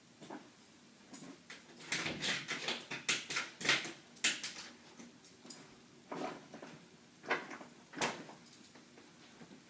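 A dog rummaging in a refrigerator: irregular clatter, knocks and rustling of items being pushed about and pulled out, busiest from about two seconds in and again near the end.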